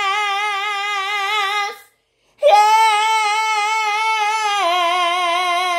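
A woman singing a gospel line unaccompanied, holding a long note with vibrato. She takes a short breath break about two seconds in, then holds a second long note that steps down in pitch near the end.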